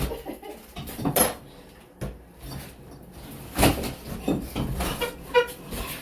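Demolition work: a few sharp knocks and bangs with clattering between them, as material is struck and pulled loose.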